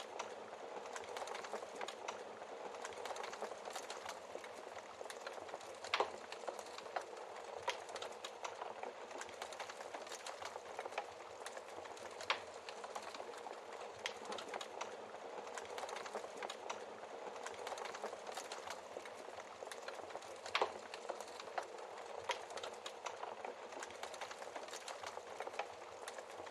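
Wood fire crackling steadily in a fireplace, with a few louder sharp pops from the burning logs.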